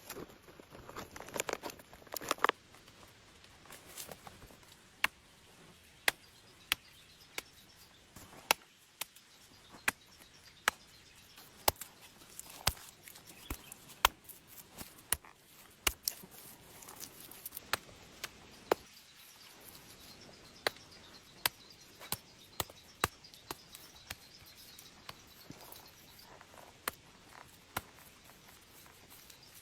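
Repeated sharp strikes of a blade chopping into wood, irregularly spaced at roughly one a second, with a burst of rustling near the start.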